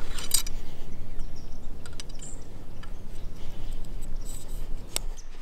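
Close handling noise: camouflage clothing rubbing near the microphone with a few sharp clicks of gear being handled, near the start, about two seconds in and about five seconds in.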